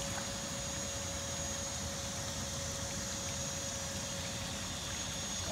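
Oase PondoVac Classic pond vacuum running steadily as it sucks up pond water and debris through its hose, a steady motor noise with a constant whine.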